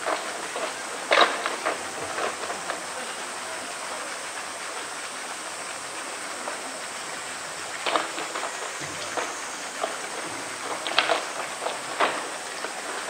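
Polar bear biting and gnawing a thick green bamboo tube: sharp cracks and crunches of teeth on bamboo, a handful of times, the loudest about a second in, over a steady background hiss.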